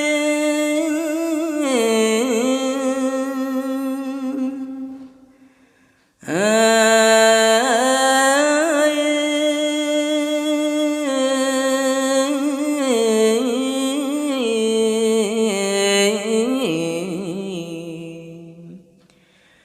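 Khmer smot chanting: a monk's solo unaccompanied voice sings Buddhist verse in long held, wavering, ornamented notes. The voice stops for a breath about five seconds in, starts the next phrase, and trails off near the end.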